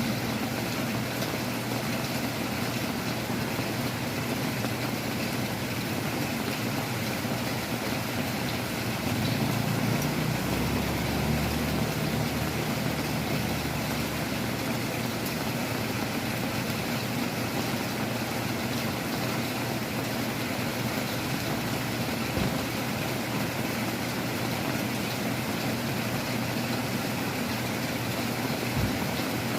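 Heavy rain and gusting wind outside a window, a steady rushing hiss throughout. A low hum swells in about nine seconds in and fades out by about fifteen seconds.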